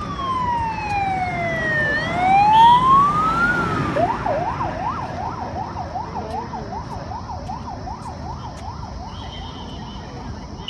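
Motorcade vehicle sirens passing: a slow rising and falling wail that switches about four seconds in to a fast yelp, about three cycles a second, fading away near the end. Vehicle noise swells as the cars go by, loudest about three seconds in.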